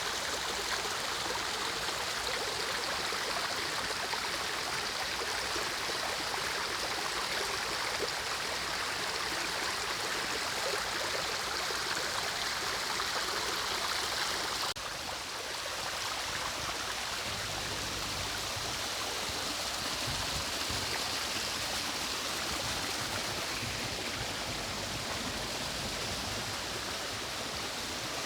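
Mountain stream rushing steadily over rocks. About halfway through it cuts suddenly to another stretch of stream that is a little quieter.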